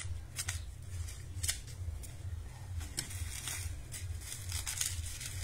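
Dry corn husks crackling and tearing in short, irregular rustles as ears of corn are husked by hand, over a low steady rumble.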